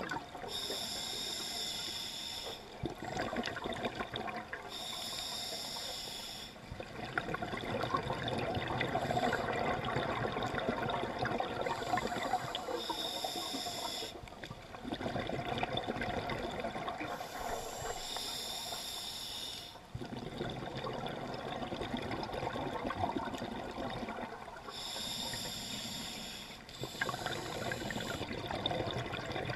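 Scuba diver breathing through a regulator underwater: about five hissing inhales of a couple of seconds each, every one followed by a longer rush and gurgle of exhaled bubbles.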